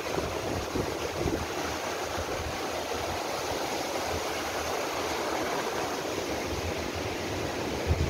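Rushing mountain river tumbling over rocks, a steady wash of white water with an uneven low rumble beneath it. A single thump near the end.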